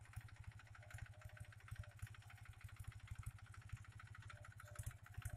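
Captain 250 DI mini tractor's diesel engine running steadily while cultivating the soil, a fast, regular chugging beat.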